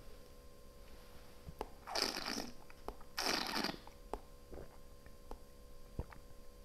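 Two short, airy hisses of breath about a second apart as a wine taster works a sip of Riesling in his mouth, with a few faint mouth clicks.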